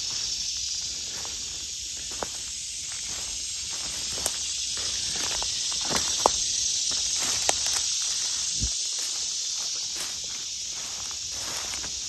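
A steady, high-pitched drone of insects in summer woodland, under the crunch of footsteps on dry leaf litter and twigs. A few sharper snaps come in the middle.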